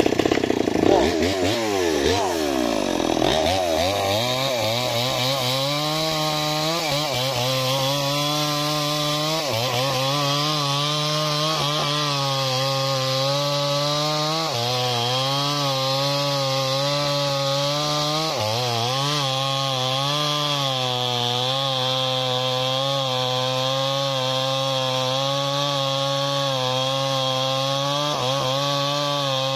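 Two-stroke chainsaw with a blunt chain cutting through a large sengon log. The engine's pitch swoops down and up in the first few seconds, then it runs steadily at high revs under load, sagging briefly a few times as the chain bites.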